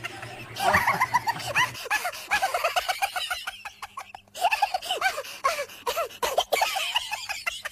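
People laughing hard in quick, high-pitched bursts of several laughs a second, with short breaks for breath.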